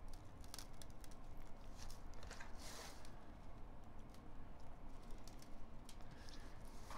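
Dry rub shaken from a plastic shaker bottle onto raw pork loin: scattered light ticks and a short hiss of falling granules about three seconds in, with a hand patting the rub into the meat.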